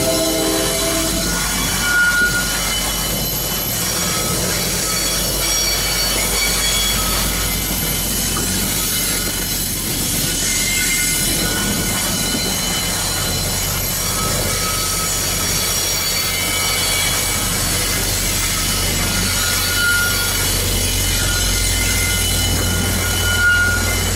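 Diesel-hauled train passing, with wheels squealing on the rails in short high-pitched squeals that come and go over a steady low rumble. The tail of a chime horn chord ends just under a second in.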